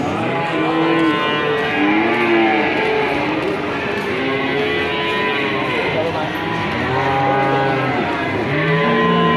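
Several cattle mooing, their long calls overlapping one after another.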